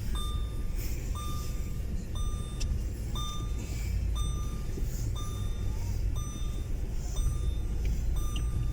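Car engine and road rumble heard from inside the car, steady and low, with a short electronic beep repeating roughly once a second over it.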